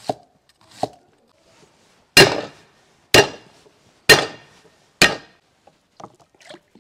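Chinese cleaver chopping on a thick wooden chopping board. Two light cuts through onion are followed by four heavy chops about a second apart, each with a short metallic ring.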